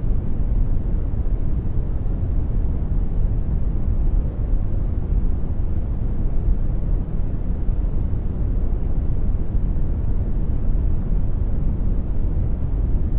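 Generated brown noise: a steady, deep rumbling hiss, strongest in the bass and fading toward the treble, unchanging throughout.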